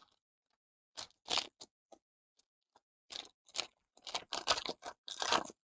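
Silvery foil wrapper of a football trading-card pack crinkling and tearing as it is ripped open by hand. It comes as a string of short, irregular crackles from about a second in, busiest and loudest near the end.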